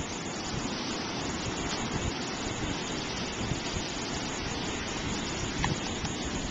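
Steady rush of ocean surf from waves breaking on the beach, heaviest in a low rumble.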